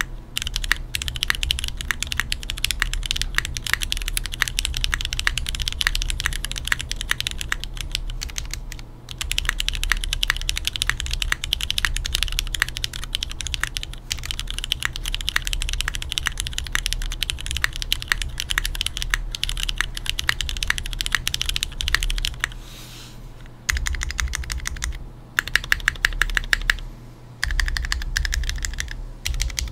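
F1-8X V2 mechanical keyboard with Cherry MX Black linear switches in an aluminum plate and GMK keycaps being typed on quickly and steadily, a fast run of keystroke clacks broken by a few short pauses. Near the end a handful of sharper, evenly spaced strokes stand out.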